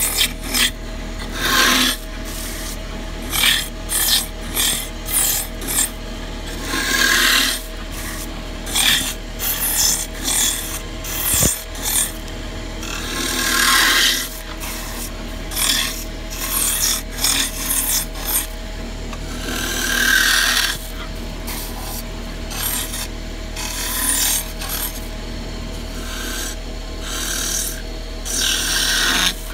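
Wood lathe running with a steady motor whine while a hand-held hollowing tool cuts the inside of a spinning wooden vessel. The cutting gives irregular bursts of scraping and hissing as the tool bites in and eases off.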